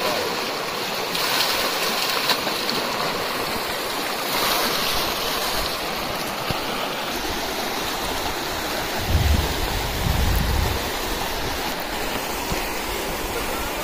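Shallow, stony river rushing steadily over rocks, with splashes as a plastic bucket is dipped and swung through the current. A low buffet of wind on the microphone comes in about nine seconds in.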